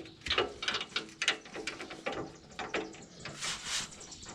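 Irregular metallic clicks and clinks of hand tools and hardware as a new sway bar end link and its nut are fitted.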